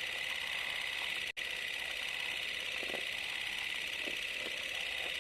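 Steady hiss of background noise in a small room, broken by a brief dropout about a second in, with a few faint soft sounds later on.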